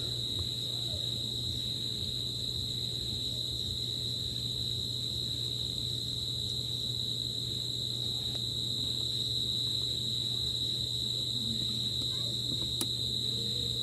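An insect trilling steadily at a high, unchanging pitch over a low steady hum, with one faint click near the end.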